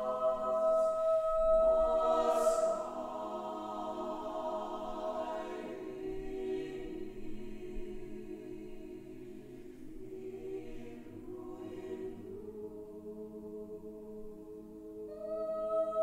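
Mixed chamber choir singing a cappella in slow, sustained chords. A high soprano note is held over the choir at the start, the singing then goes on softly in lower, slowly shifting chords, and the high held note returns near the end.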